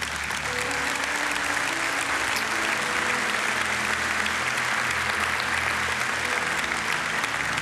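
A congregation applauding steadily, with a faint held musical tone underneath.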